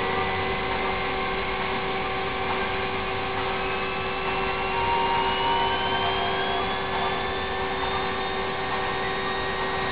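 Spinning rotor of a homemade pulse-motor device running with a steady whir and hum, and a faint whine that slowly rises in pitch. The rotor housing is wobbling and wearing.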